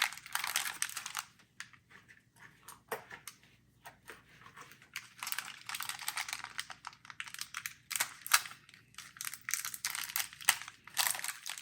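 Small screws and case hardware handled in a plastic bag: crinkling plastic with many small, irregular clicks and ticks of metal parts.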